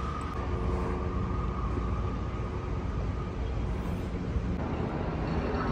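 City traffic noise: a steady low rumble, with a thin high whine that fades out about three seconds in.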